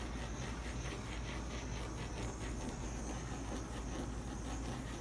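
Small handheld gas torch hissing steadily as its flame is passed over wet acrylic pour paint.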